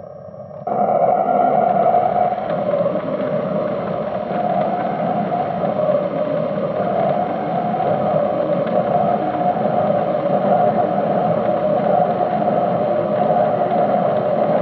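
Bandai DX Arcle toy transformation belt playing its Ultimate Form transformation sound effect: a dense, steady electronic drone that comes in suddenly just under a second in and holds evenly.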